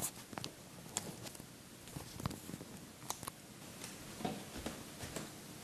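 Faint camera handling noise: a scatter of short, light clicks and knocks as the camera is fumbled into place.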